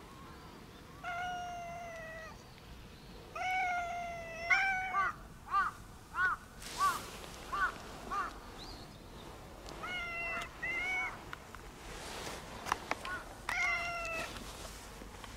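Brown tabby-and-white cat meowing over and over, about a dozen calls: long, level meows at the start and near the end, and a quick run of short mews in the middle.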